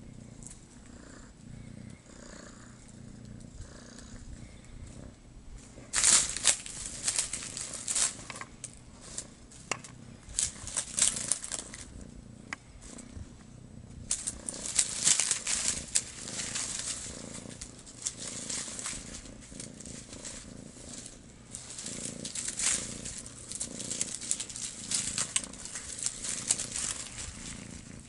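Kitten purring steadily, a low continuous rumble. From about six seconds in, loud crinkly rustling comes and goes over it as the kitten grabs and bites a toy made of colourful strips.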